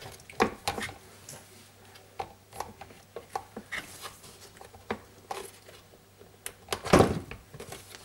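Scattered plastic clicks and knocks of hands unclipping a Zanussi ZDT41 dishwasher's pump unit from its plastic base, with a louder clatter about seven seconds in.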